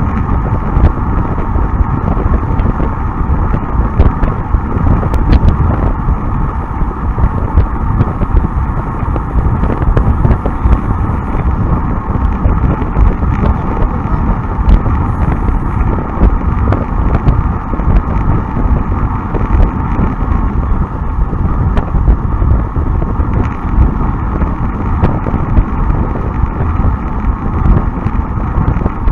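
Wind and road rumble on a bicycle-mounted rear camera's microphone while riding, a steady noise with scattered sharp clicks.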